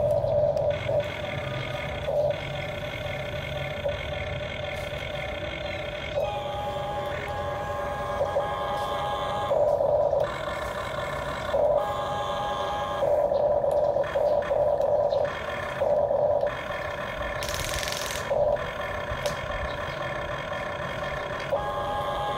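Huina RC excavator's small electric motors whining in short on-off spells as the boom, arm and bucket move. A brief hiss about three quarters of the way through.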